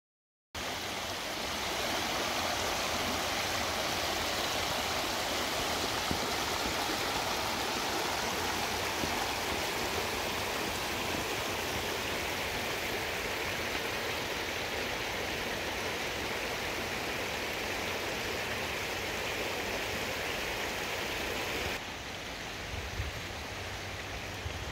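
Shallow creek running over a rocky bed, a steady rushing of water that turns a little quieter near the end.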